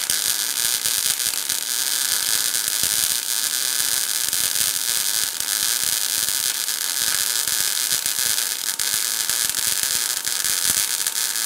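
MIG welding arc from a PTK Rilon MIG 200 GDM semi-automatic welder, burning steadily with a continuous crackling hiss. It is 0.8 mm wire short-arc welding 3 mm steel under CO2 shielding gas, torch pushed at a forward angle, throwing a little spatter.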